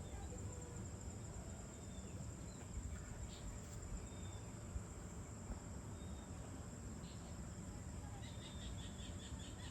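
Evening insect chorus: a steady high-pitched trill over a low rumble. A few short high chirps break in, with a quick run of them near the end.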